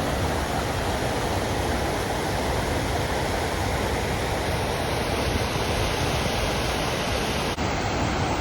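Steady rush of water pouring over a jungle waterfall, with a brief break about seven and a half seconds in where the recording is cut.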